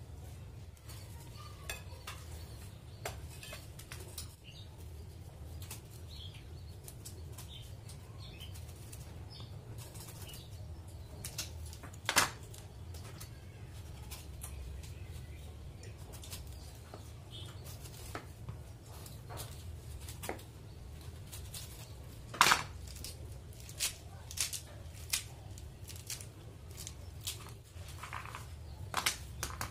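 A kitchen knife knocking on a wooden cutting board while fruit is peeled and a pomegranate is cut open, with scattered small clicks and handling sounds and two sharp, louder knocks, about 12 and 22 seconds in, over a low steady hum.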